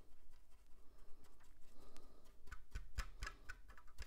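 Paintbrush dabbing and scraping on a foam model viaduct, with light taps as the piece is handled. The sound is faint at first, then a quick cluster of clicks and taps comes between about two and a half and three and a half seconds in.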